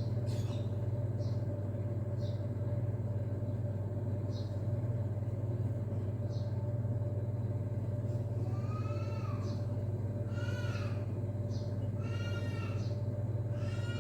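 A cat meowing, four calls in the second half, each rising then falling, over a steady low hum.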